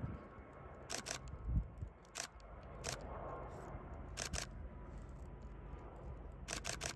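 Camera shutters clicking in short bursts of two or three, over the steady low rumble of the Airbus Beluga XL's jet engines passing. A single low thump comes about one and a half seconds in.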